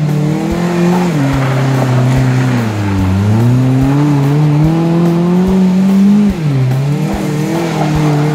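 Cut-down 1995 Suzuki Vitara with automatic transmission, its engine revving up and down as it spins doughnuts on dirt. The revs fall sharply about a second in, again about three seconds in and just after six seconds, then climb again.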